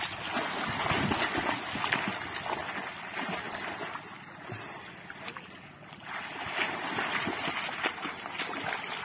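Freestyle (front crawl) swimming in shallow water: arms splashing and churning the surface stroke after stroke, quieter for a couple of seconds in the middle.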